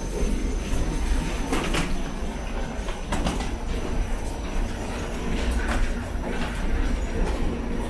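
Steady low rumble with several sharp clanks as passengers walk through an airport jet bridge, footfalls and the bridge's floor plates clattering underfoot.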